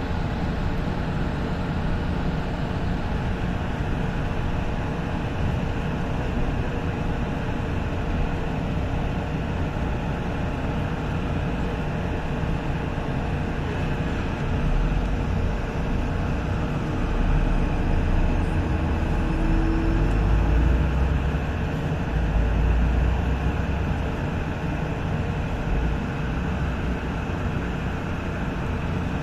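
Mexico City light-rail train in motion: a steady rumble of wheels on track that grows heavier and louder about halfway through.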